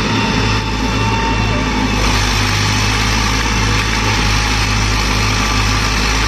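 Eicher tractor's diesel engine running loudly and steadily, with no change in speed.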